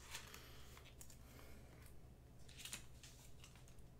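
Near silence with a few faint clicks and rustles of trading cards and a foil pack wrapper being handled and set down.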